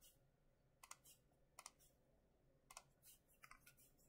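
Faint, irregular clicking and tapping at a computer, about a dozen sharp clicks in small groups, bunched most thickly near the end.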